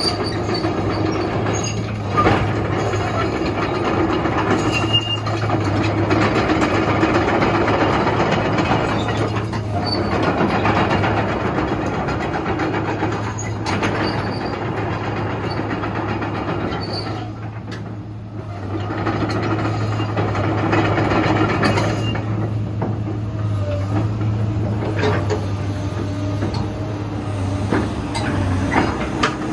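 Komatsu PC230-8 hydraulic excavator being worked: its diesel engine runs steadily under load, with hydraulic working noise and occasional metallic knocks. The sound eases briefly a little past halfway, then builds again.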